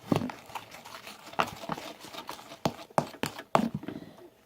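Irregular clicks and taps of a utensil against a container as a baking-soda slime mixture is stirred.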